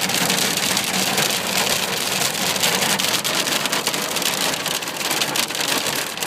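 Small hail pelting a car, a dense patter of many sharp ticks over a steady hiss.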